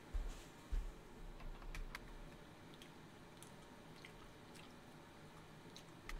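Faint, scattered short clicks and a couple of soft thumps near the start, over quiet room noise.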